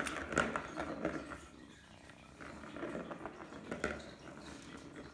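Kitten purring close up, with clicks, rustles and scrabbling from kittens playing at a plastic ball-track toy and a cardboard scratcher.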